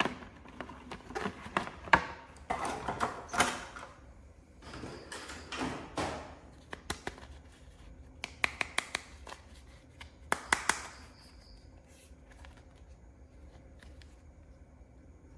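Action-figure packaging handled during unboxing: irregular crinkles, scrapes and sharp plastic clicks, with quick runs of clicks about eight and ten seconds in. After about eleven seconds only faint room noise remains.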